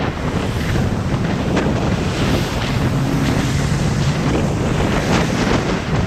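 Heavy wind buffeting the microphone of a camera on a bicycle descending a wet road at speed, mixed with the hiss of tyres on wet asphalt.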